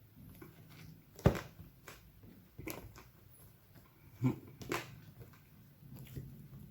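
Crunches of a crispy chocolate monaka wafer ice cream being bitten and chewed: a handful of sharp cracks, the loudest about a second in and two more close together past the middle.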